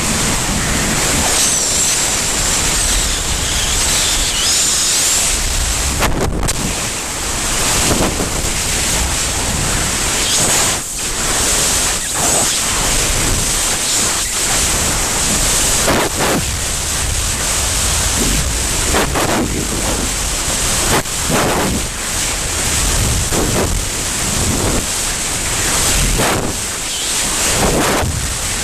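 Loud, steady rush of wind buffeting the microphone during a skydiving freefall, swelling and easing a little from moment to moment.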